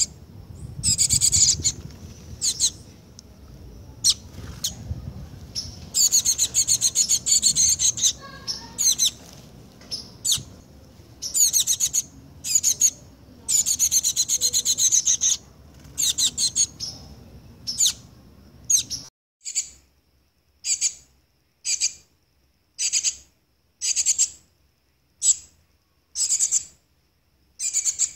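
A fledgling songbird begging for food with repeated high, harsh calls, at first in runs of varying length. Later the calls come singly, about once a second.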